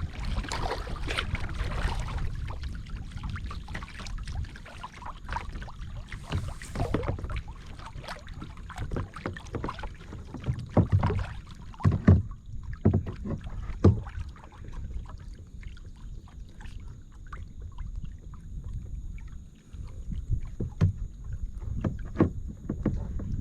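Kayak paddle strokes dipping and splashing in the water, with a few louder knocks about halfway through.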